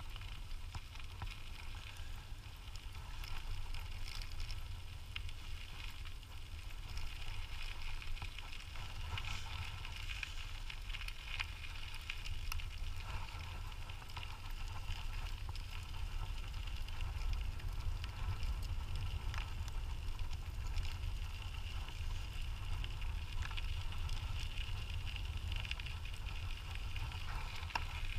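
Dog-drawn kick scooter rolling along a track: a steady crackling hiss of wheels on the ground, with a constant low wind rumble on the microphone.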